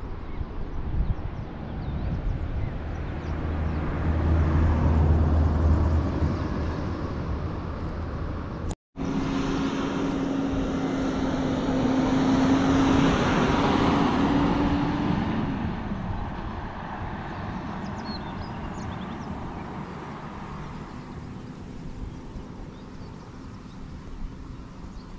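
Low wind rumble on the microphone while riding a bicycle downhill. After a cut about nine seconds in, a passing motor vehicle's engine hum and road noise swell, dip slightly in pitch and fade away, leaving a faint outdoor hiss.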